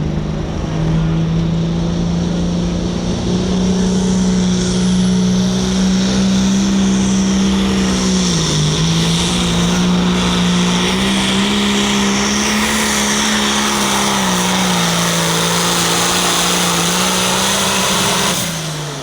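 Hot farm class pulling tractor's diesel engine running flat out under load during a pull, its pitch holding high with a brief dip about eight seconds in and a high whine above it, then falling away sharply near the end.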